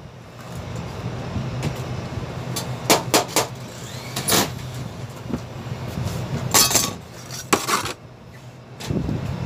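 Sharp metallic knocks and a short rattle from sheet-metal HVAC ductwork being handled and stepped on, a cluster about three seconds in, another near the middle and a longer clatter past halfway, over a steady low hum.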